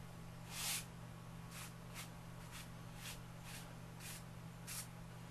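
Lecturer's chalk rubbing across bogus paper in short, repeated strokes, about two a second, as white streaks are laid into a drawn waterfall. A steady low hum runs underneath.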